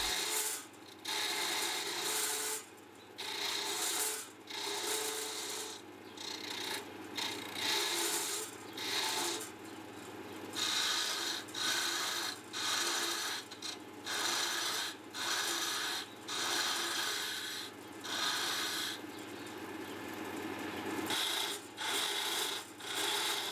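Gouge chisel cutting a spinning wooden blank on a GMC ML100 wood lathe, scraping in repeated passes about once a second over the lathe's steady hum. The gouge is blunt, so it scrapes rather than cuts cleanly.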